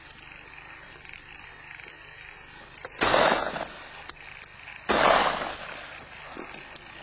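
Two shotgun shots about two seconds apart, each starting sharply and dying away within about a second.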